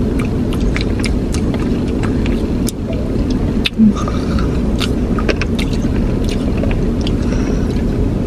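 Steady low rumble of an idling car heard inside the cabin, with scattered light clicks and scrapes of plastic spoons in cups of soft-serve ice cream. A short hummed voice sound comes about four seconds in.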